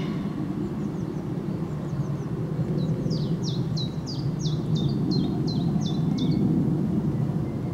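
A small songbird sings a run of about a dozen short, high notes, each sweeping downward, starting about three seconds in and stopping about a second before the end, over a steady low rumble.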